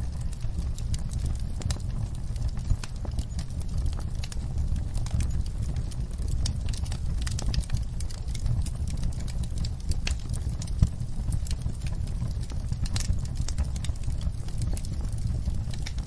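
Wood fire in a stove crackling, with irregular sharp pops over a steady low rumble; a few pops stand out louder, one about eleven seconds in.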